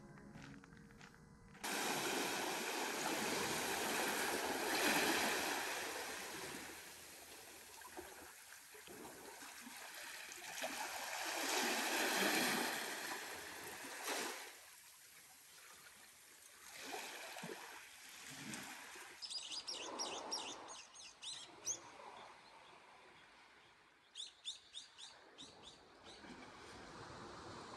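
Small waves washing onto a sandy shore, the wash swelling and fading in slow surges every few seconds. A bird calls in two quick runs of high chirps in the latter part.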